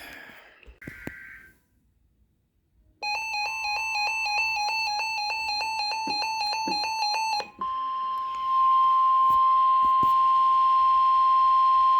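Weather radio alert: a fast run of electronic beeps for about four seconds, then a single long steady tone, the NOAA Weather Radio warning alarm tone that heralds a severe thunderstorm warning.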